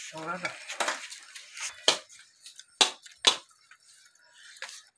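Steel plates and utensils clinking: several sharp, separate clinks, the loudest about two and three seconds in. A voice is heard briefly at the start.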